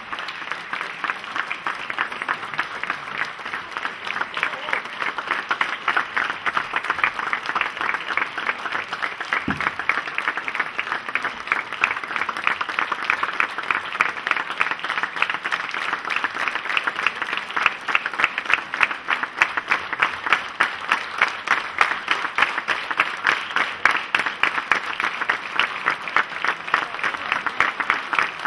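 Theatre audience applauding the cast at a curtain call: dense, sustained clapping that grows louder in the second half.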